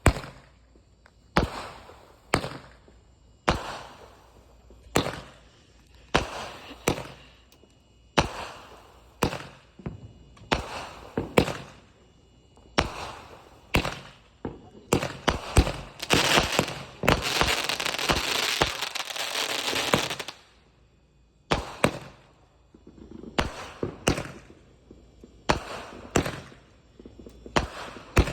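Consumer aerial firework cake firing shot after shot, a sharp bang about once a second, each with a short echoing tail. About halfway through, a dense hissing crackle fills a few seconds before the single shots resume.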